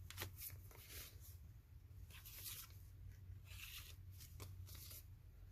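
Faint rustling and crinkling of paper as a folded paper insert of a handmade junk journal is handled and folded back up, in several short rustles over a low steady hum.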